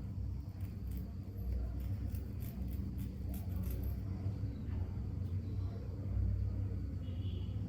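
Scissors snipping through wig lace: a run of quick, light snips from about half a second to four seconds in, over a steady low rumble.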